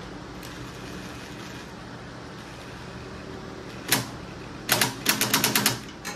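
Electric fan running steadily, with a sharp knock about four seconds in and then a quick run of about eight sharp clicks over roughly a second.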